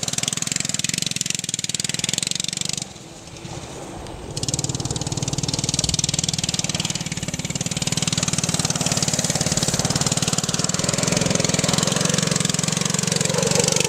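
Small gas engine of a quarter-scale RC Silverado truck running and pulling hard as it drives across dirt. The sound drops away sharply about three seconds in, then picks back up about a second and a half later.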